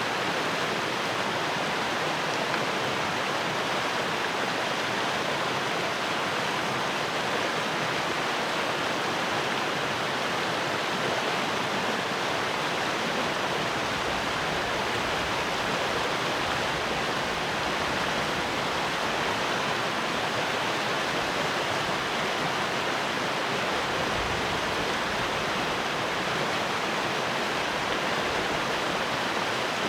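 A fast-flowing stream rushing and splashing over rocks: a steady, unbroken rush of water.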